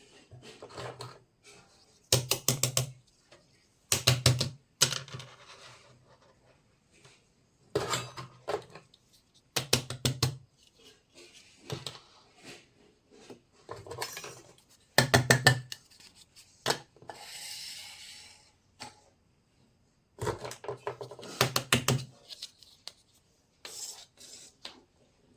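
Miniature toy kitchen pieces clattering and clicking against each other as they are handled, in bursts of rapid clicks every couple of seconds, with a short rustle about two-thirds of the way in.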